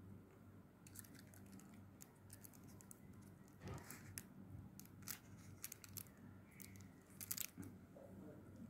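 Faint scattered clicks and scrapes of a plastic spoon cutting goat meat against aluminium foil in a take-away food box, over a low steady hum.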